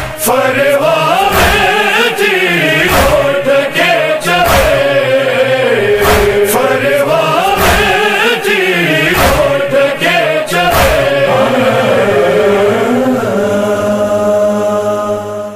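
A young male voice sings a Sindhi noha lament with wavering, ornamented lines over a held backing chord, with sharp beats about every second and a half. About 13 s in the singing stops, the beats have already ended, and the held chord starts to fade near the end.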